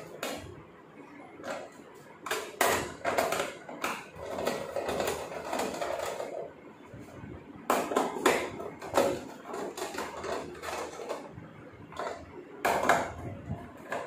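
A screwdriver driving and tightening screws through the metal mounting plate of a top-load washing machine gearbox, with irregular metallic clinks, knocks and short scrapes.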